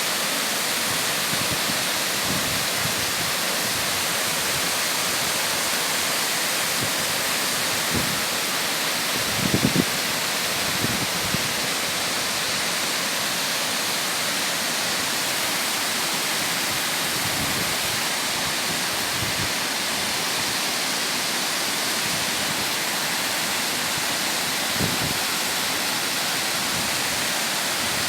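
Mountain stream water rushing and splashing over rocks, a steady full wash of sound with a few brief low splashes about a third of the way in.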